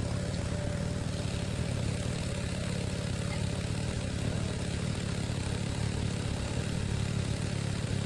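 Small petrol engine of a water pump running steadily at constant speed, pumping water out of a stream.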